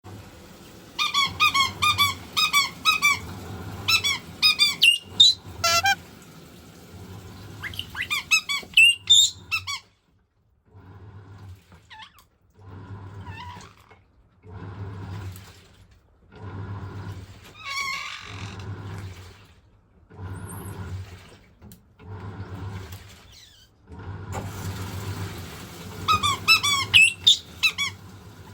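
White-bellied caique giving rapid strings of short, shrill calls, several a second, over a washing machine agitating in regular surges with water sloshing. The calls break off after about ten seconds, leaving the machine's rhythmic churning and hum, and start again near the end.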